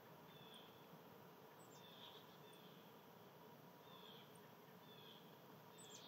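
Faint songbird chirps, short high notes repeating every second or two over a quiet outdoor hiss.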